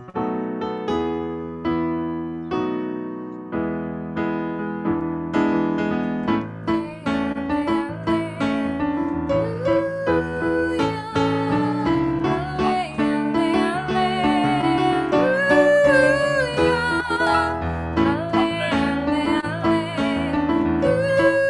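Piano playing a song with steady chords; from about eight seconds in, a wavering melody with vibrato, most likely a singing voice, joins over it.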